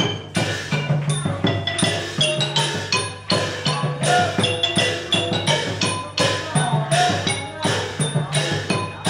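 Thai classical piphat ensemble playing: fast runs of struck notes on the ranat wooden xylophone over a recurring low beat from the barrel drums.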